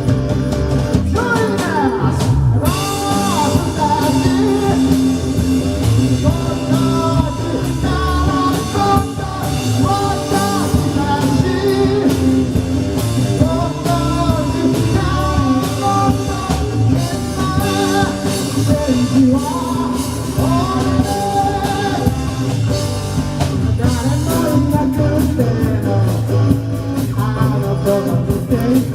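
Live rock band playing a song, with a lead vocal over drums, bass and electric guitar.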